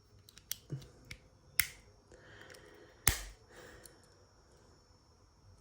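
Plastic Lego pieces being handled and pressed together: a few sharp clicks, the loudest about three seconds in, over a faint rustle.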